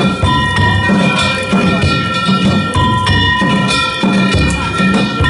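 Danjiri hayashi festival music: a big taiko drum and ringing hand gongs (kane) beating out a fast, steady rhythm.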